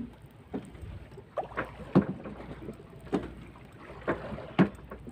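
Small waves slapping against the hull of a small wooden boat: irregular short splashes and knocks, about one every half second to a second, over a low steady rumble.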